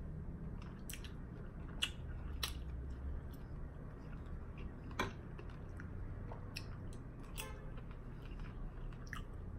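A person chewing food, with scattered short wet mouth clicks and smacks, one of them louder about halfway through, over a steady low background hum.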